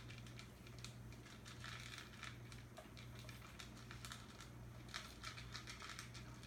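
Kitten claws clicking and scratching on cardboard and a hard floor: quick irregular ticks and rustles, thickest about two seconds in and again near the end, over a steady low hum.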